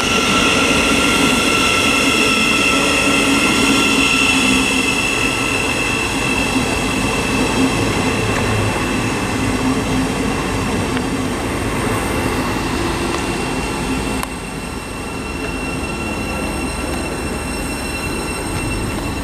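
Thameslink Class 700 (Siemens Desiro City) electric multiple unit pulling into the station and slowing, with steady high whining and squealing tones over its running noise that fade away as it slows. The sound drops suddenly about fourteen seconds in.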